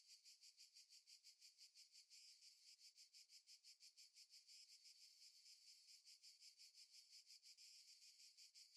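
Faint insect chirping: a steady, evenly repeating high-pitched pulse of about eight chirps a second.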